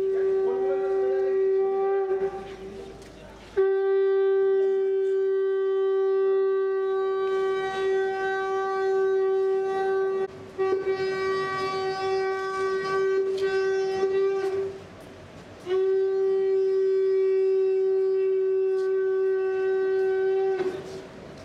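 Conch shell (shankha) blown in long, steady blasts on a single pitch, four blasts with short breaks between them, sounded as a ceremonial welcome.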